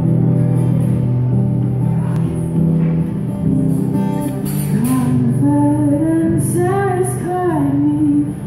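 Acoustic guitar strummed in a steady run of chords, with a woman's singing voice coming in about halfway through and carrying a melody over the guitar.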